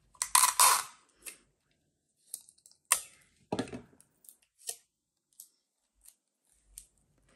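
A strip of adhesive tape pulled and torn off, a loud rasp in the first second, then a sharp click and scattered small clicks and handling noises as the tape is handled and pressed on.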